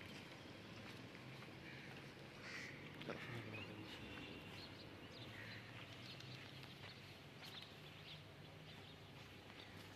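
Faint outdoor ambience: a low steady hum with a few faint bird chirps, and a single brief knock about three seconds in.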